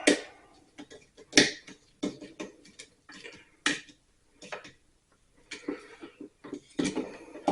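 Scattered small clicks and taps of a screwdriver and wires being worked into a dryer receptacle's terminals, the sharpest at the very start and about a second and a half in.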